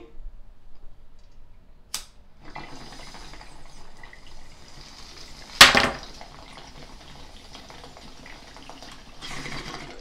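Glass water bong bubbling steadily as smoke is drawn through the water during a hit, getting louder near the end. There is a small click about two seconds in and a loud sharp click about halfway through.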